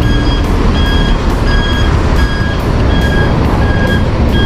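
Reversing alarm beeping steadily, about one and a half beeps a second, over heavy wind rumble on the action-camera microphone.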